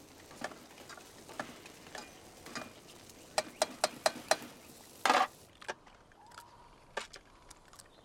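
A metal utensil clinking and scraping against a steel saucepan as food is stirred: light clinks every half second or so, a quick run of sharp clinks about three and a half seconds in, and a short scrape about five seconds in.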